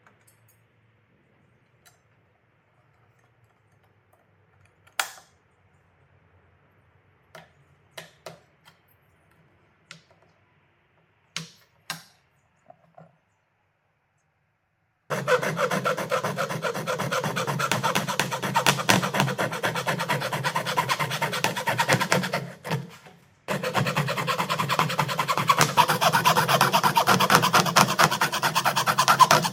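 A few scattered clicks and knocks, then about halfway through a hacksaw starts cutting the ribbed plastic of a cyclone dust-collector lid in fast, continuous rasping strokes, with one short pause near the end.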